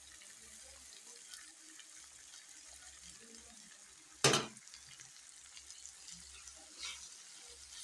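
Minced meat tipped from a bowl into a pot of simmering potatoes and spices, with a steady faint sizzle, then stirred with a wooden spoon. A sharp knock about four seconds in is the loudest sound, and a smaller knock comes near the end.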